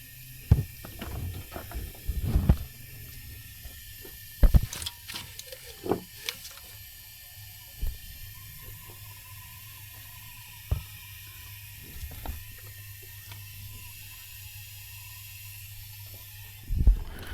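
Leak-down tester being connected and pressurised on an engine cylinder: scattered clicks and knocks of fittings and tools over a steady faint hiss of air.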